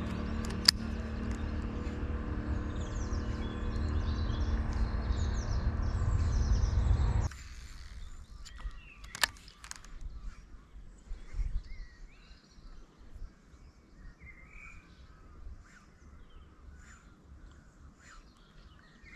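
A steady engine hum with a low rumble, growing louder, cuts off abruptly about seven seconds in. Then quiet outdoor ambience follows, with birds chirping and a few light clicks.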